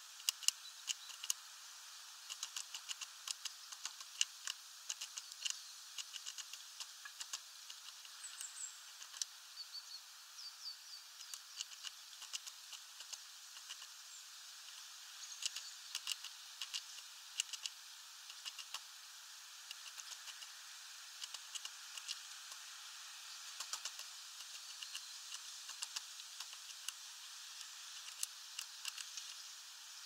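Great tit pecking and hammering at sunflower seeds on a wooden feeder tray: irregular sharp taps and clicks over a steady hiss, with a few short, faint, high chirps about a third of the way in.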